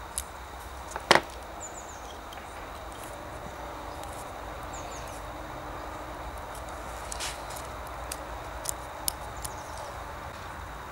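Small metal lighter parts clicking as they are fitted with tape-wrapped pliers and fingers: one loud double click about a second in, then several fainter ticks later on.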